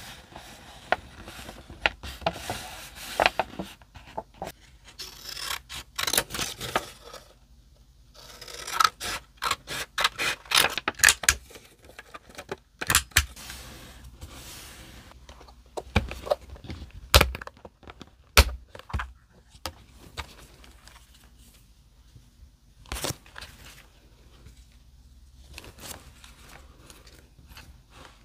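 Paper being handled by hand on a desk: scraping and rustling as a folded card is pressed and smoothed, with scattered clicks and a few sharper knocks in the second half. Near the end, hands rummaging through paper stickers in a plastic box.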